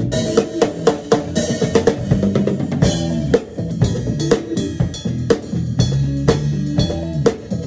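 Acoustic drum kit played with sticks in a busy funk groove, with kick drum, snare and cymbal hits coming thick and fast. It plays over backing music whose low held notes change every second or so.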